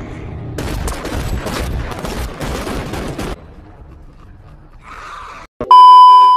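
A rapid volley of movie gunfire, many shots close together, for about three seconds. Near the end comes a loud steady test-tone beep, the kind that goes with TV colour bars, which cuts off abruptly.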